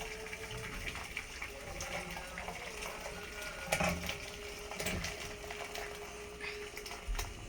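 Fish soup being poured from a small pot into a larger one, the liquid splashing as it fills, with two knocks of the pots about four and five seconds in. A faint steady hum lies underneath.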